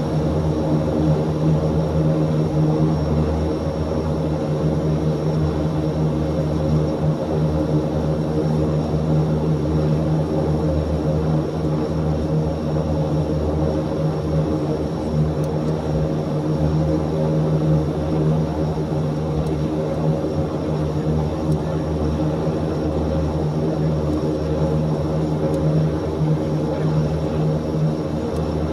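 Antonov An-26's twin turboprop engines and propellers running steadily: an even, low propeller drone with a stack of humming tones that holds the same pitch throughout.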